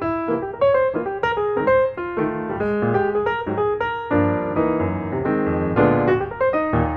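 Background piano music, notes played in a quick, flowing line over a steady bass part.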